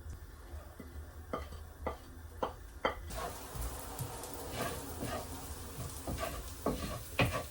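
A utensil knocks against a pan four times at about half-second intervals. Then, about three seconds in, onions and garlic start sizzling in hot oil, with a few more knocks of stirring near the end.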